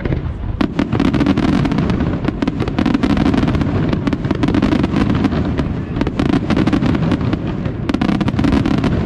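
Fireworks display firing a fast, dense barrage of bangs and crackling, many reports a second, growing louder about a second in.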